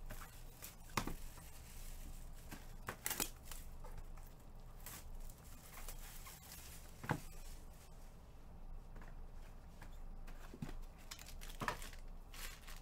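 Scattered light clicks and rustles of handling at a desk, a few seconds apart, over a faint steady low hum.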